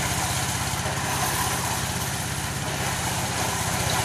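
Engine of a corn thresher (sheller) running steadily, with a fast, even beat and a constant hiss over it.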